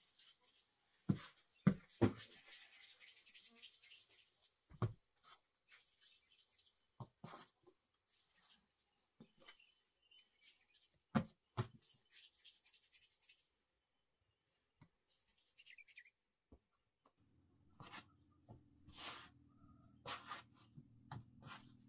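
Hands working bread dough on a floured cloth: quiet rubbing as dough balls are rounded between the palms, with a few soft dull pats of dough set down on the cloth. A low steady hum comes in near the end.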